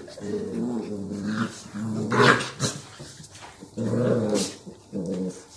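Barbet dog growling in about four rough bouts of half a second to a second and a half each, with a sharper, higher sound about two seconds in, while rolling about at play.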